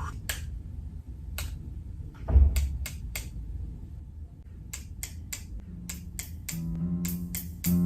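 A string of sharp clicks or snaps, sparse at first and then quicker and more regular, with a low thump about two and a half seconds in. Near the end, pitched notes fade in under them, building into a beat: the opening of a music mix made from everyday school sounds.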